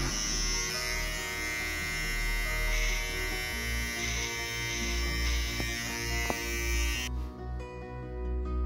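Electric hair clipper buzzing steadily as it trims the neckline of a fade, stopping abruptly about seven seconds in. Background music plays underneath.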